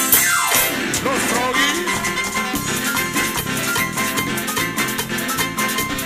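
Live tropical dance band playing: keyboards and percussion over a steady beat, with a tone sliding steeply downward in the first second.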